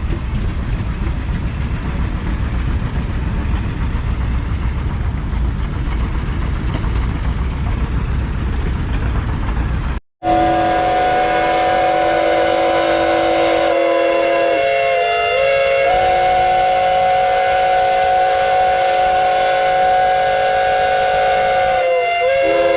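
Low rumbling noise for about ten seconds. After a sharp cut, a multi-note whistle blows one long steady chord, dipping briefly in pitch twice.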